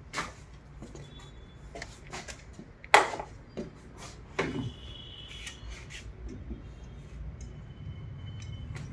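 Scattered metallic clinks and taps of bolts and hand tools being handled against a diesel engine block while parts are fitted. The loudest is one sharp knock about three seconds in.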